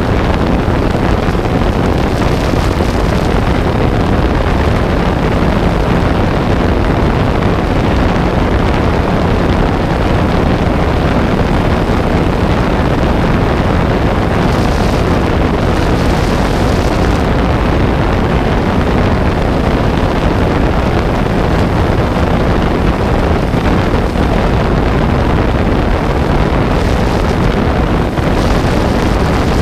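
Steady wind noise buffeting the microphone of a camera in flight: a loud, deep rushing rumble with a faint steady hum underneath.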